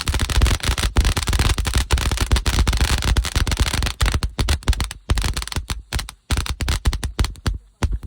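Fireworks going off in a rapid string of sharp bangs, many a second, like a machine gun. They come thickest in the first few seconds, then thin out to scattered single pops near the end.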